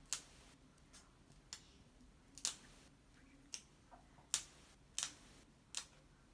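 Dog nail clippers snipping through the dog's nails: about nine sharp, short clicks, irregularly spaced, roughly one every half second to a second.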